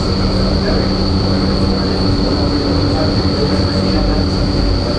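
Loud, steady rush of air and fan noise inside an indoor skydiving wind tunnel's flight chamber, with a low hum and a thin high whine held throughout.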